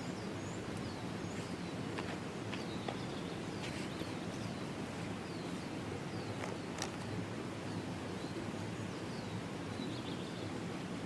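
Short, high, falling bird chirps scattered over a steady low background rush, with a few light clicks.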